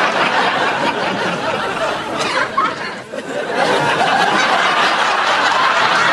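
Audience laughter: many people chuckling and laughing continuously, easing briefly about three seconds in.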